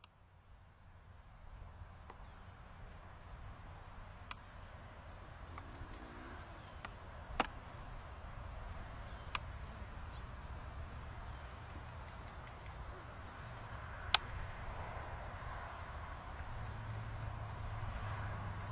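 Rural outdoor ambience: a steady high insect drone over a low rumble, broken by a few sharp clicks, while a pony-drawn cart approaches along a paved lane and its sound builds toward the end.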